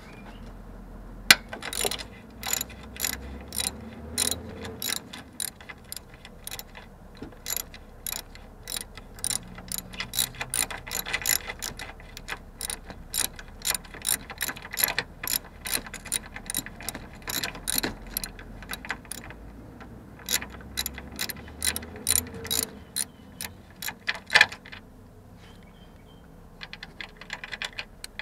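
Hand socket ratchet clicking in steady strokes, about two to three clicks a second, as it turns a bolt out through a long extension on a Prius inverter water pump mounting. Near the end, after a short pause, comes a quicker run of clicks.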